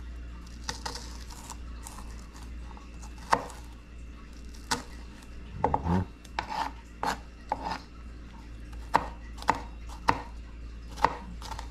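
Chef's knife chopping on a plastic cutting board: irregular sharp knocks of the blade hitting the board as a red onion is diced, and near the end a yellow bell pepper is sliced.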